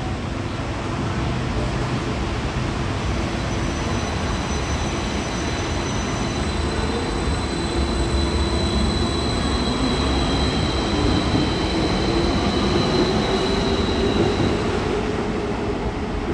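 Danhai Light Rail tram running on the rails: a steady rumble with thin high-pitched whines over it, and a lower tone that rises a little in pitch in the second half.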